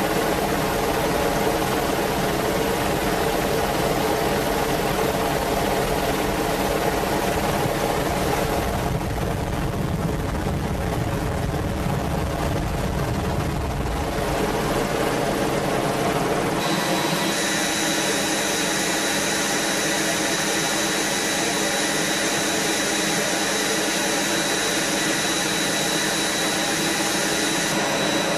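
Merlin helicopter's turbine engines and rotor running steadily. About two-thirds of the way through, the sound changes abruptly: the deep rumble drops away and a steady high-pitched turbine whine takes over.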